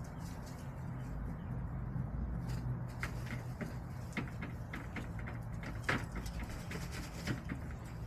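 Irregular short ticks and scratches of hens pecking and scratching in dry dirt and straw close by, thickening after about three seconds, with one sharper tick near the six-second mark. Under them runs a steady low hum.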